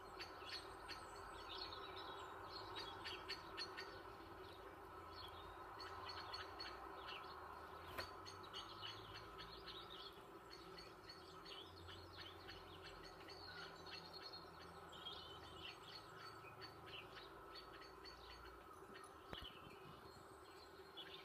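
Faint small birds chirping and calling, many short quick chirps overlapping, over a steady low hum.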